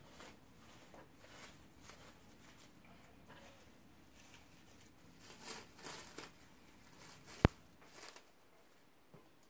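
Faint, on-and-off crinkling and rustling of plastic wrap being peeled by hand off balls of pounded yam, with one sharp click about seven seconds in.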